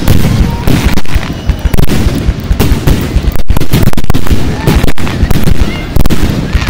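Aerial firework shells bursting in quick succession: a dense run of loud booms and bangs, one hard on the heels of the next.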